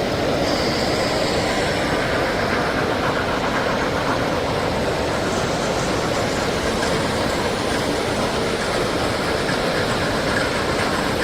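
Steady background din of a busy model railroad show hall, an even wash of noise with no single sound standing out.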